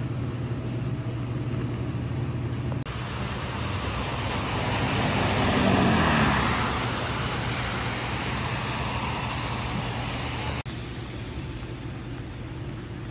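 City street traffic on wet pavement: a steady low hum of traffic with tyre hiss, and a vehicle passing close in the middle, swelling and then fading with a falling pitch. The background noise shifts abruptly twice.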